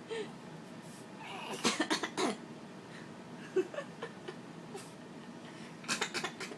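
An adult pretending to cough: a quick run of short forced coughs, then a second run about four seconds later.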